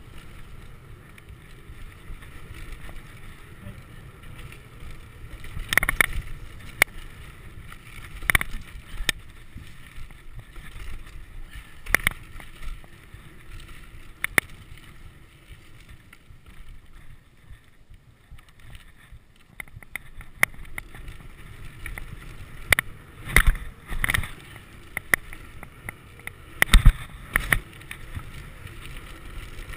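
Mountain bike riding down a dirt trail: a steady rumble of tyres and wind on the camera, broken by sharp clunks and rattles of the bike over bumps. The knocks cluster about six seconds in and come thickest in the last seven seconds.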